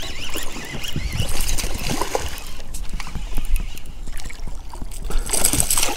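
A hooked largemouth bass splashing and thrashing at the water's surface as it is reeled toward the boat, with a louder splash near the end.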